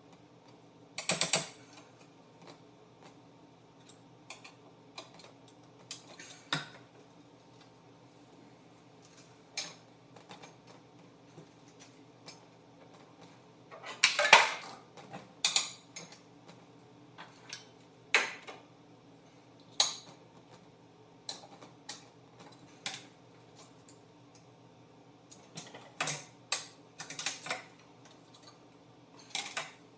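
Scattered metallic clinks, clanks and knocks of steel parts and hand tools being handled during seat-bracket fitting, with the loudest cluster about halfway through and another run of clicks near the end.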